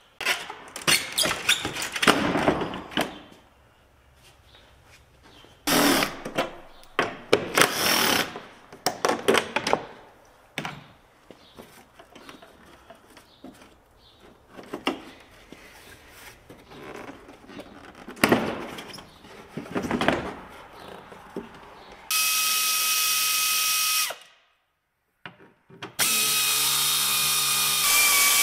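Power drill running in several short bursts, then a steady high whine for about two seconds that cuts off suddenly, and another steady run starting near the end.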